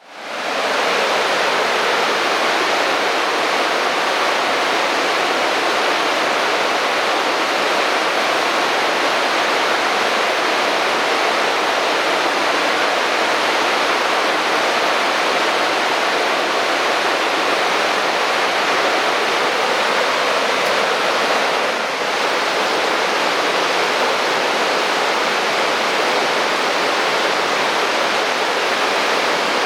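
Fast-running creek rushing steadily, fading in at the start, with a slight brief dip in level about two-thirds of the way through.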